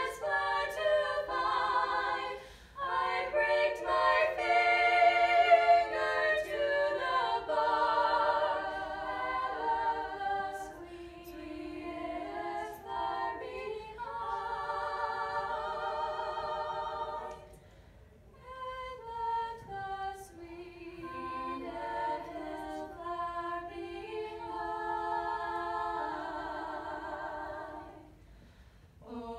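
Female vocal quartet of teenage girls singing a cappella in close harmony, the held notes carrying vibrato. The singing drops away briefly between phrases about eighteen seconds in and again near the end.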